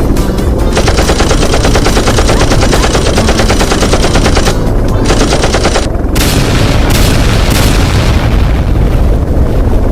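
Rapid-fire gunfire sound effect: a long fast rattle of shots, a shorter second burst, then a few heavier bangs, over a steady low drone.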